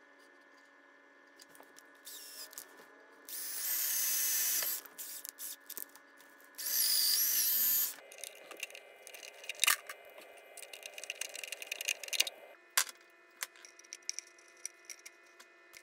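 Cordless drill boring a hole into a wooden board, run in two bursts of about a second and a half each, around 3 and 7 seconds in, with a high whine. Softer handling rustle and light clicks follow.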